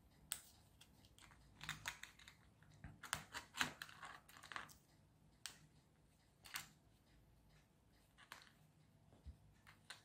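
Thin plastic click-together puzzle pieces being handled and pressed together, giving faint, scattered clicks and light rustling, busiest in the first half.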